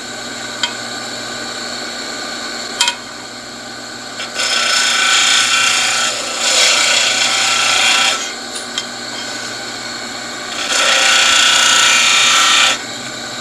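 Small disc sander running steadily while a cobalt high-speed steel tool bit is touched against the abrasive disc, giving a grinding hiss from about 4 to 8 seconds in and again near the end. A couple of sharp clicks come in the first few seconds.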